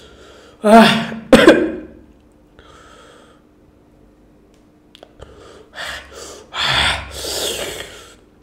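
A man coughing and gasping loudly about a second in, with a sharp second cough just after, then several hard breaths blown out through the mouth near the end. These are his reactions to the burning heat in his mouth after eating extremely hot Jolo chips.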